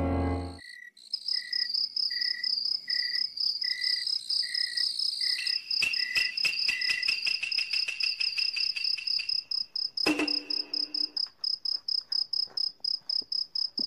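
Crickets chirping, several at different pitches: one gives about two chirps a second, another a high steady trill that breaks into quick pulses, about four a second, in the later part. Music cuts off just after the start, and a knock with a short low hum comes about ten seconds in.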